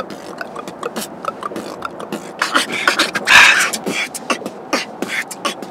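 A person beatboxing: a fast run of mouth-made clicks and pops, with one louder, longer hissing burst a little past halfway.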